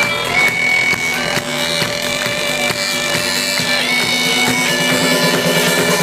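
Band music with held chords over a drum beat.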